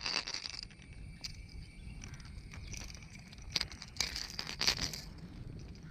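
Insects buzzing steadily in the background, with a few sharp clicks and a brief rustle about four seconds in from hands clipping a pencil lure onto the line's snap.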